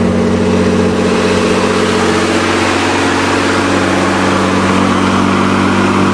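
The Nissan pickup's 3-liter engine running at a steady, fast idle shortly after a cold start from months of sitting; the owner wonders whether the fast idle comes from a sticking throttle.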